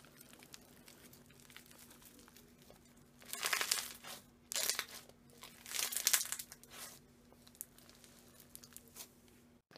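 A crunchy slime packed with small clear beads is squeezed and pressed by hand, crackling and crunching. About three seconds in, four bursts of crunching come over the next four seconds.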